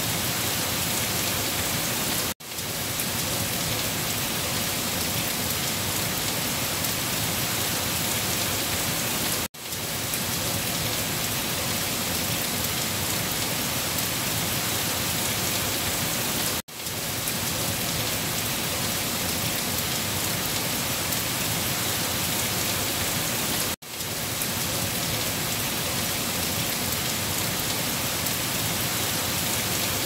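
Steady rain falling with a dense, even hiss. About every seven seconds it cuts out to a brief silence and quickly fades back in, the sign of a short rain recording looping.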